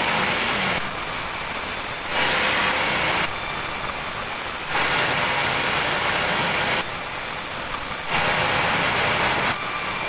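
Sawmill saw cutting boards from a muddy meranti log, running continuously. Its noise swells to a harsher, hissing pitch and eases back every second or two as each board is cut and pulled away.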